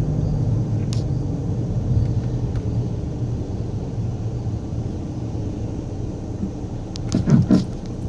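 Skoda Superb driving with a steady low road rumble, then a quick cluster of knocks about seven seconds in as it goes over a speed bump: the noise the car makes on speed bumps.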